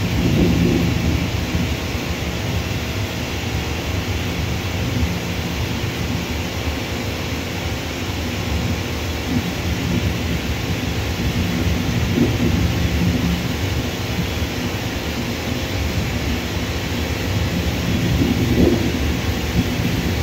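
Steady low rumble of distant jet airliner engines across an airfield, with a hiss over it and small swells about half a second in and near the end.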